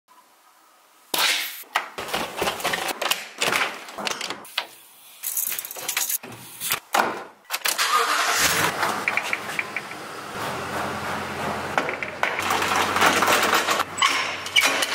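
A bunch of keys jangling and clinking as it is picked up and handled. About eight seconds in, a Toyota Tundra pickup's engine is started with the ignition key and settles into a steady idle.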